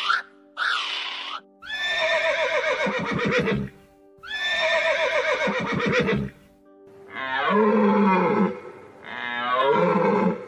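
A horse whinnying twice, each a long call that starts high and falls away into a shuddering end, over background music with steady held tones. Shorter animal calls follow near the end.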